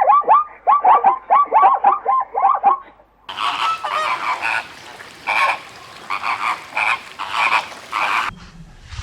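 Animal calls in two clips: a fast run of short calls sliding downward in pitch, about four a second, then from about three seconds in a different series of harsh, honking calls about once or twice a second.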